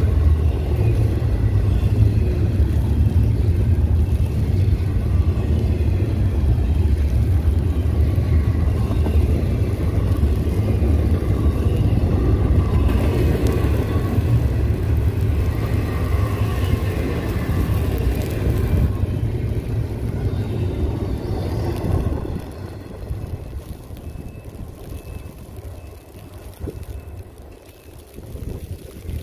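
Freight train rolling past with a steady low rumble, which drops away about three-quarters of the way through and fades as the train moves off.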